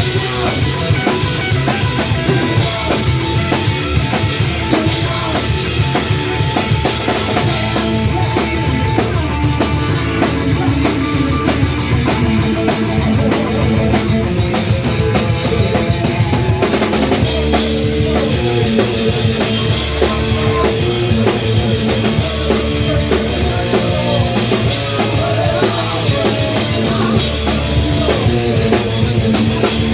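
Live rock band playing loud, with the drum kit prominent; the playing changes about halfway through.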